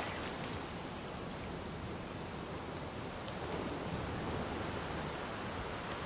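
Ocean surf washing on a beach: a steady, even rush of noise with no distinct breaks.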